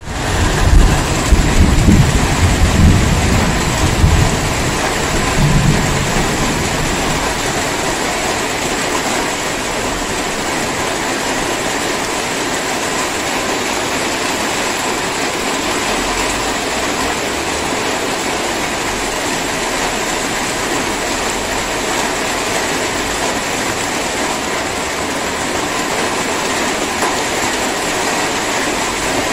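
Steady hiss of drizzling rain. A deep low rumble rolls through the first several seconds and fades out.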